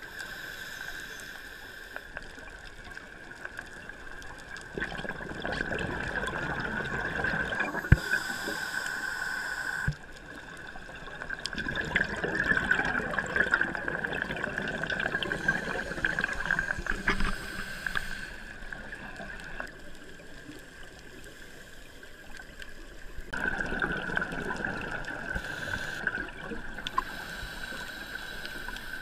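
Scuba divers' exhaled breath bubbling and gurgling up from their regulators, heard underwater, coming in surges several seconds long over a steady high whine.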